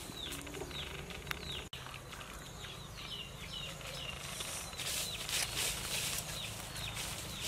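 Chickens peeping in many short, high, repeated calls, over a steady low hum. Metal tongs click and scrape against a pot as boiled meat and lemongrass are lifted, with a rustling stretch about five seconds in.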